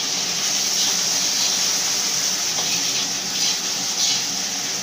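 Beaten egg sizzling in hot oil in a wok while it is stirred and scrambled with a spatula: the first step of frying nasi goreng. The sizzle is a steady hiss.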